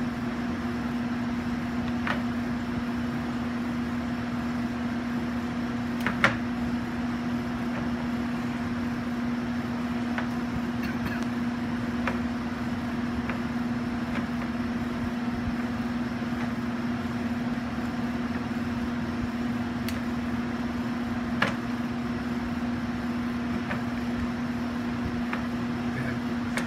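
Steady machinery hum with a constant low tone, broken by a few sharp clicks or knocks, the loudest about six seconds in.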